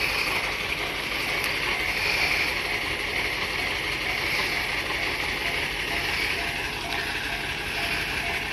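Noto Railway diesel railcar's engine running while the car stands, with a steady high-pitched buzz over it.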